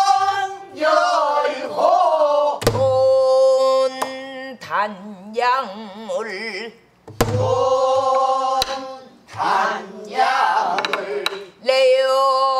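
Voices singing a pansori passage in long phrases with heavy vibrato, accompanied by a buk barrel drum. A deep drum stroke sounds twice, each followed about a second later by a sharp click of the stick on the drum's wooden shell.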